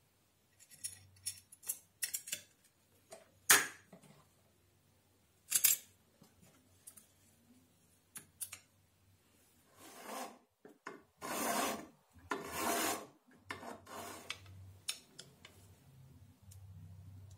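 Small brass hinge, brass screws and a copper plate being handled and fitted by hand: scattered light metal clicks and taps, then several longer scraping strokes about two-thirds of the way through, and a screwdriver working a small screw near the end.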